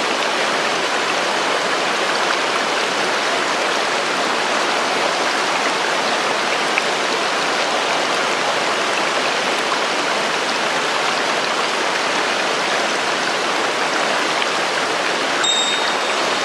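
Mountain stream rushing steadily; a brief high chirp sounds near the end.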